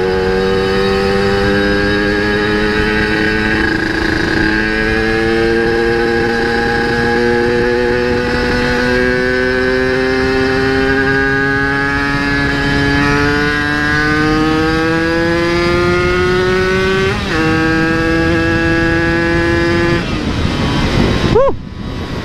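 Yamaha RX-King 135 cc two-stroke single on an aftermarket exhaust, heard from the rider's seat under way. It pulls steadily with the pitch slowly climbing, dips briefly about seventeen seconds in, then gives a quick rev and drop near the end. The rider reckons it pulls strongly from the bottom of the revs to the top.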